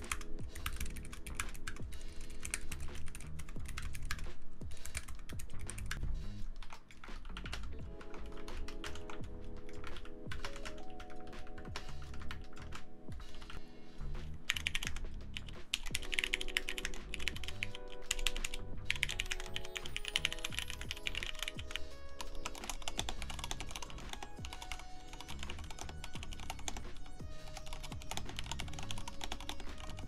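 Fast touch-typing on mechanical keyboards, a dense, continuous stream of key clacks, starting on a low-profile Keychron K3. The key sound changes about halfway through as a different keyboard is typed on. Background music with sustained tones plays underneath.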